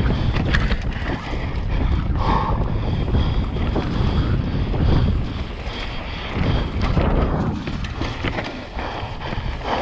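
Mountain bike descending a dirt singletrack at speed: wind buffets the microphone over the tyres on dirt, with frequent clicks and rattles from the bike over bumps.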